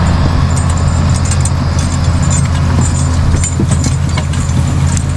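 Large diesel engine of heavy drainage-tiling equipment running steadily at a constant pitch, with scattered light metallic clinks over it.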